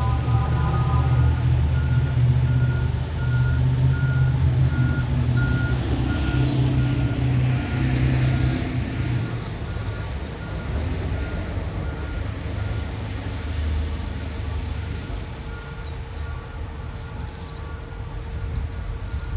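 Back-up alarm on CSX maintenance-of-way equipment beeping about one and a half times a second, over the low rumble of a diesel engine. Both fade about halfway through.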